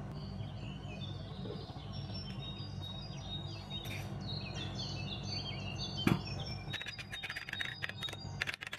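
Small birds chirp repeatedly in the background over a steady low hum. About six seconds in there is a sharp knock, followed by a quick run of clicks from a metal spoon against a ceramic bowl as sauce is stirred.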